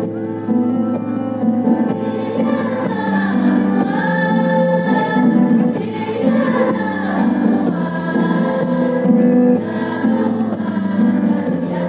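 A choir singing a slow melody in held notes, with musical accompaniment.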